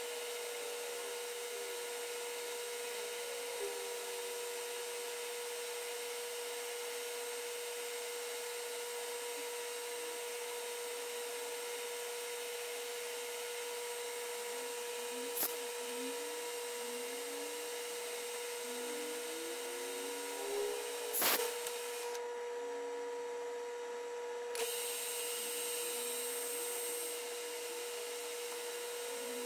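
Lathe running with a steady whine while machining a small steel lead screw. A few short rising squeaks come about two-thirds of the way through, along with a couple of sharp clicks.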